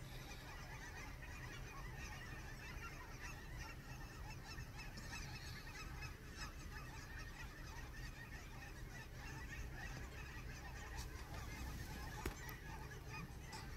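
A large flock of Canada geese honking, many short calls overlapping without a break. A steady low rumble runs underneath.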